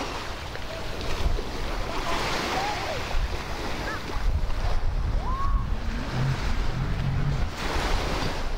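Surf washing on the beach with wind buffeting the microphone, a steady rushing noise with a low rumble, and brief snatches of distant voices.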